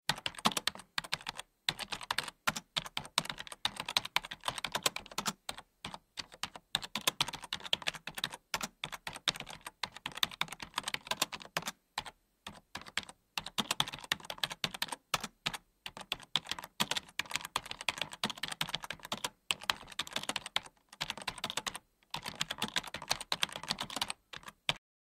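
Rapid computer keyboard typing clicks in long runs, broken by a few short pauses and stopping just before the end.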